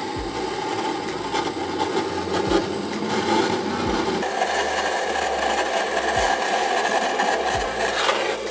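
Steady hum of an Atmos wood boiler's draught fan, pulling air through the firebox, with the hiss of a handheld gas torch lighting paper and kindling. The sound shifts in tone about four seconds in.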